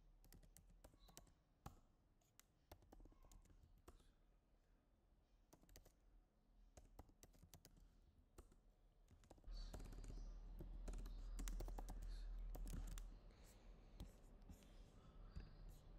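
Faint computer keyboard typing: scattered, irregular key clicks. A louder low hum comes in for a few seconds past the middle.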